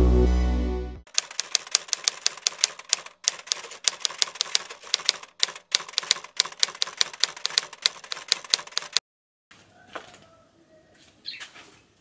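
Typewriter sound effect: a quick, uneven run of key clacks lasting about eight seconds, cutting off abruptly. Electronic intro music fades out in the first second.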